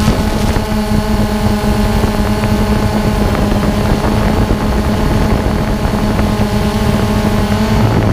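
Multirotor drone's motors and propellers buzzing at a steady pitch; the pitch drops suddenly near the end.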